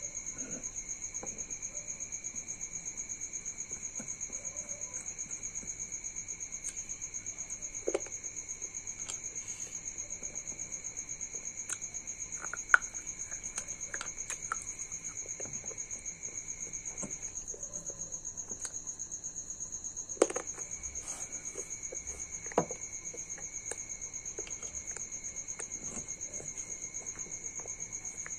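Crickets trilling steadily, with a second insect-like band that drops out for about three seconds past the middle. Over it come scattered light clicks and taps as broken white pieces are handled and set into clay diyas on a wooden table; the sharpest taps come about 13, 20 and 23 seconds in.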